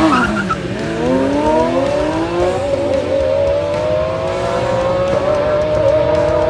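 Lamborghini Aventador's V12 launching from a standing start: the held revs dip sharply as the car pulls away, then the engine note rises steadily as it accelerates hard away.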